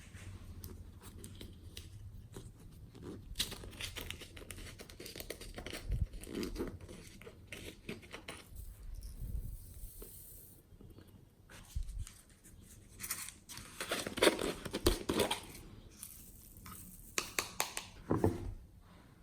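Hands squishing and stretching glossy slime: a run of small, sticky clicks and pops, louder in a few spells.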